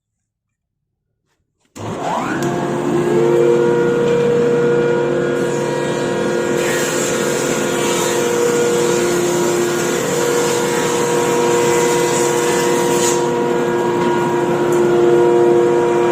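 Electric wood planer switched on, its motor spinning up with a rising whine to a steady high running pitch. From about 6 to 13 seconds in, the added hiss of blades cutting a board joins it, then the motor runs on without load.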